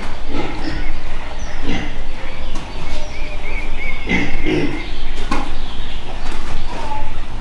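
Ducks quacking in short, harsh, separate calls, with thin high chirping calls near the middle.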